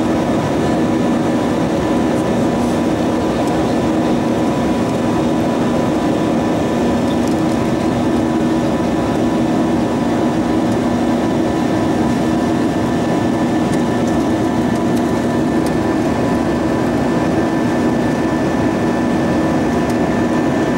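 Steady cabin noise of an Airbus A320-232 in flight: the even rush of airflow and the hum of its IAE V2500 turbofan engines, with a few constant low drone tones.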